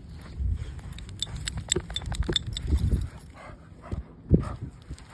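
A dog mouthing and wrestling an inflatable ball on sand, with a run of quick clicks and knocks and a few short dog noises. A single sharp knock, the loudest sound, comes about four seconds in.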